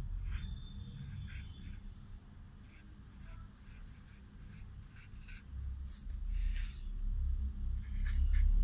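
Felt-tip marker writing on paper: a run of short scratchy strokes, busiest and loudest about two-thirds of the way through and again near the end.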